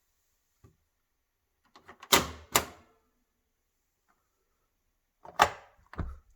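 Two clusters of sharp mechanical clicks and knocks: two loud ones about two seconds in, then another group about five and a half seconds in, with quiet between.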